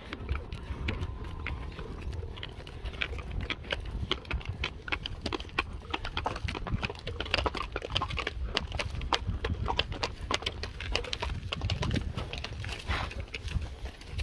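Horse hooves clip-clopping in an irregular run of sharp hoof strikes, over a steady low rumble.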